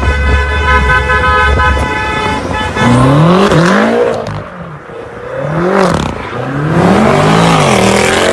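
A car horn held in one long steady blast that stops about two seconds in, then a car engine revving up and down several times.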